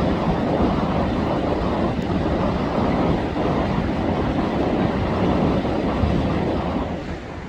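UH-60 Black Hawk helicopter flying low overhead: a loud, steady rotor and turbine rumble that fades somewhat near the end as it moves away.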